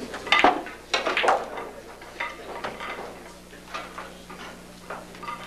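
Pool shot: the cue tip strikes the cue ball and the balls click against each other and the cushions. The loudest clicks come about half a second in and around one second in, and fainter clicks follow.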